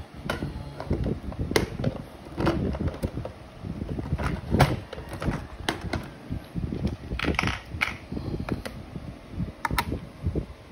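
Handling noise from hands working on an opened iPhone 6: irregular small clicks and taps, some of them fingertip presses on the display-cable connectors, over a low rumble, with a brief scratchy rustle about seven seconds in.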